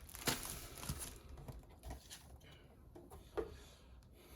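A few faint, scattered knocks and rustles of small diamond-painting kit items and packaging being handled.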